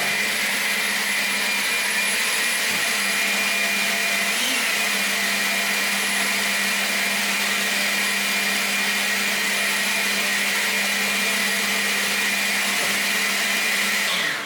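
EGO LB5800E 56-volt cordless leaf blower running steadily: a loud rush of air with a steady fan whine. It cuts off abruptly near the end and winds down.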